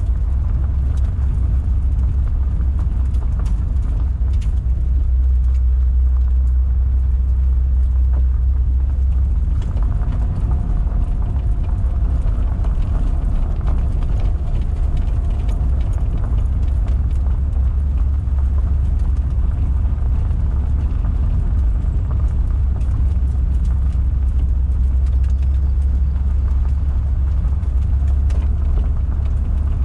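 1973 Datsun 240Z's straight-six engine running under way as a steady low drone, heard from inside the cabin, with tyre noise from the gravel road and a few faint ticks of stones.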